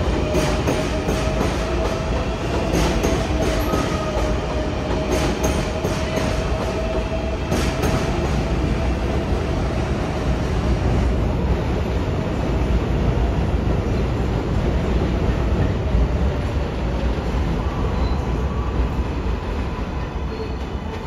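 R188 subway train moving through the station: a steady rumble of wheels on rail, with clicks over the rail joints for the first several seconds. A thin steady whine runs through the first half and fades out around the middle.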